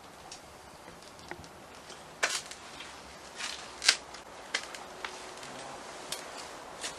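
Irregular crunches and clicks of footsteps on loose rubble and debris on a concrete floor, with a few sharper snaps about two and four seconds in.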